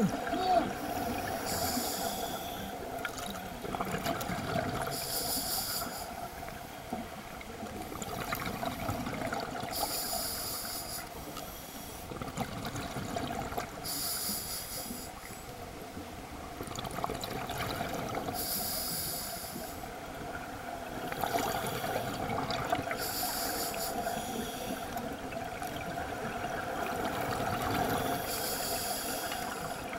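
Scuba regulator exhaust bubbles from a diver breathing underwater: a hissing, bubbling rush about a second long with each exhale, recurring every four to five seconds over a steady underwater wash.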